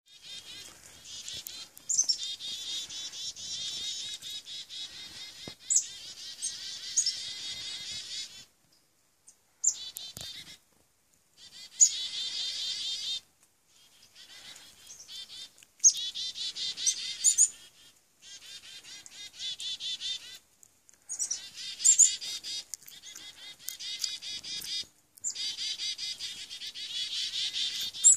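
A flock of chickadees calling over and over in a dense chatter. High, thin, falling notes are followed by buzzy dee-dee-dee notes, with a few short breaks in the sound.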